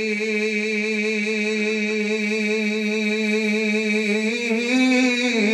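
A man singing a Bengali Islamic gazal unaccompanied, drawing out one long note with a wavering vibrato that steps up slightly in pitch near the end before breaking off.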